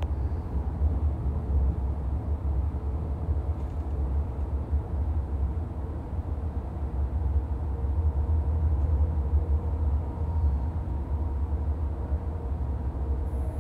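Steady low rumble of an NJ Transit Multilevel passenger coach running along the track, heard from inside the car, with a faint steady hum over it.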